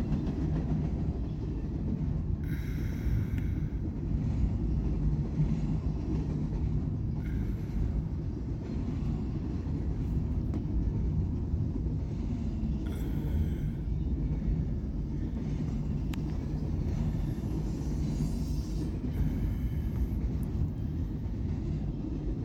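Double-stack intermodal freight train rolling past, its well cars making a steady rumble of wheels on rail. Short higher-pitched flares rise over the rumble every few seconds.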